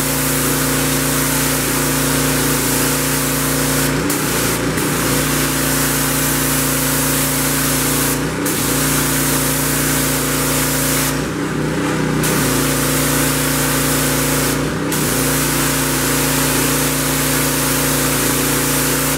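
Simpson MegaShot gas pressure washer, its Honda GC190 single-cylinder engine running at a steady speed under a loud hiss of high-pressure spray on concrete. The spray cuts out briefly about five times, and the engine note shifts each time.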